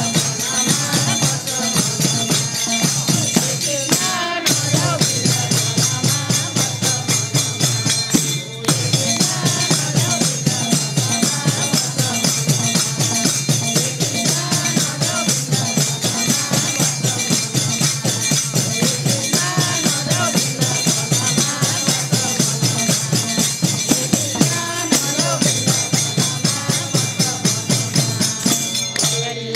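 Nepali devotional bhajan music played between sung verses: a fast, steady beat with jingling tambourine-like percussion under a wavering melodic line.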